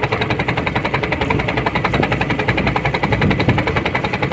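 A small boat's engine runs steadily, heard from on board while the boat is under way: a fast, even chugging pulse.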